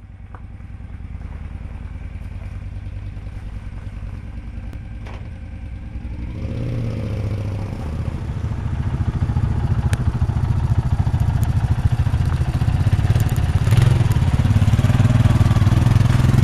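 Cruiser motorcycle engine running, a steady low rumble that grows steadily louder, filling out about six and a half seconds in.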